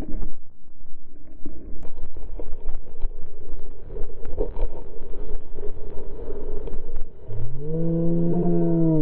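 Snowboard scraping and chattering over packed, tracked snow, a rough rumble with many small knocks, picked up by a GoPro Hero 3 worn by the rider. Near the end a rider's voice lets out one long held shout of about two seconds, rising at the start and dropping away at the end.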